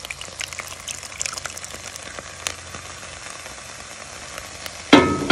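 Thick ground pumpkin-seed paste being worked through a plastic strainer onto boiled cauliflower: wet crackling and light scratching, with a sharp tick about halfway and a loud knock near the end.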